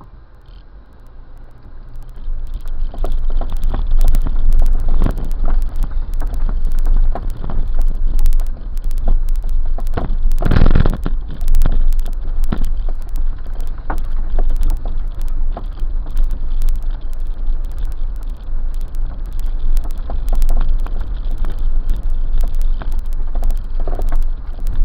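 A Jeep driving a rough dirt trail, heard from inside the cab: a steady low rumble of engine and tyres with frequent knocks and rattles from the bumps. It gets louder about two seconds in, and one loud jolt comes about ten seconds in.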